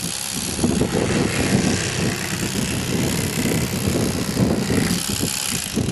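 Electric fillet knife running with a steady motor whir as it cuts a walleye fillet.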